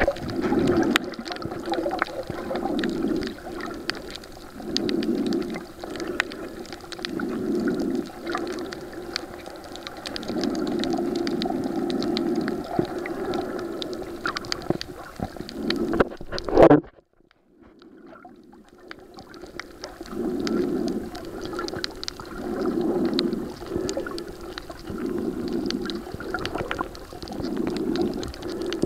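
Muffled underwater recording of a snorkeller breathing through a snorkel: dull rushing swells that rise and fall every two to three seconds, with fine crackling ticks above them. About two-thirds of the way through a sharp knock is followed by a few seconds of near silence before the breathing returns.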